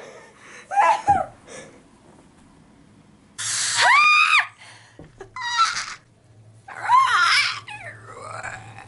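Young women screaming and shrieking in playful bursts. One long high scream comes about three and a half seconds in and another loud yell about seven seconds in, with shorter yelps between them and a wavering wail near the end.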